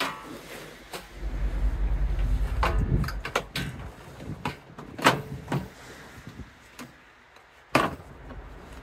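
Clunks, knocks and clicks of a DeWalt DXV38S wet and dry vacuum's plastic parts being handled and fitted together, the sharpest about five seconds in and just before the end. Wind buffets the microphone with a low rumble from about one to three seconds in.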